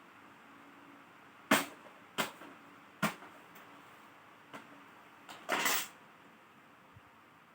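A few sharp clicks and knocks, then a short rattle, from hands handling plastic and metal laptop parts on a work surface.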